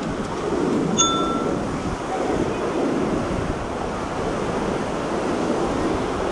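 Surf washing onto the beach, with wind on the microphone. A single short metallic ding rings out about a second in.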